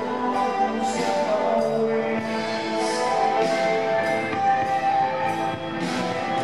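Live rock band playing: electric guitars and keyboard holding sustained chords over a drum kit, with cymbal hits landing every second or less.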